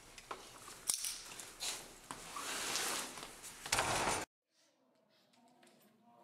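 Rustling and knocks of a hallway scuffle, with a sharp knock about a second in and a louder burst of noise just before the sound cuts off abruptly about four seconds in, leaving only faint room noise.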